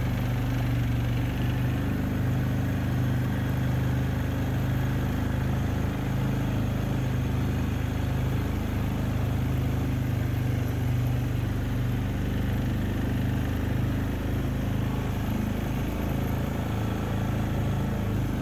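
A vehicle engine running steadily with an even, low hum that does not change.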